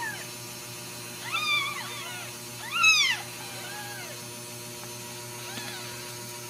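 Newborn Ragdoll kittens mewing: a string of short, high-pitched mews that rise and fall, the loudest about three seconds in, with fainter ones near the end.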